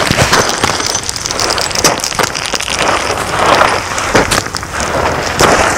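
Boots kicking into a steep slope of loose gravel and stones while climbing, crunching and scraping with each step.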